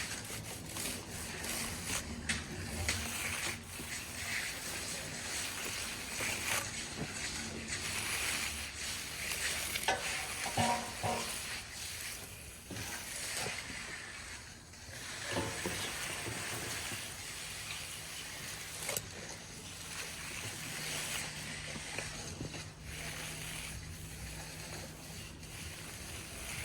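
Hand finishing tools scraping across wet concrete: a steady gritty swish with many small clicks.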